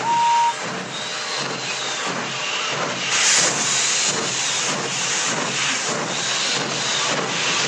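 A steam locomotive's whistle gives a short toot that ends about half a second in. The locomotive then chuffs steadily with hissing steam, a little under two exhaust beats a second, as it hauls a heavy train.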